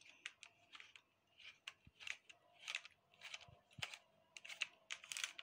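Faint irregular plastic clicks and short scrapes as a black plastic tube is worked onto a toy gun by hand.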